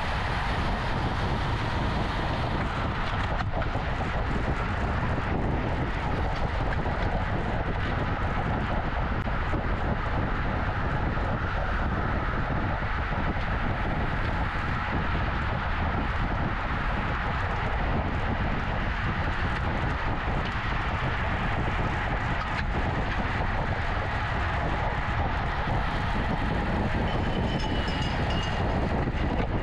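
Steady rush of wind over the microphone and tyre noise from a road bicycle being ridden along.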